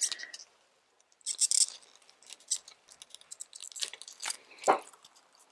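Knife cutting into the fleshy stem and leaves of a Graptopetalum 'Purple Delight' succulent, heard as a run of sharp clicks and short crisp crunches, the plant rustling against its plastic pot as it is held.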